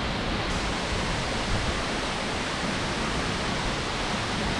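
Large waterfall's steady rush of falling water.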